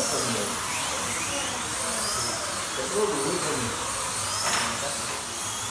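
Slot cars' small electric motors whining around the track, their pitch rising and falling every second or two as they speed up on the straights and slow for the corners.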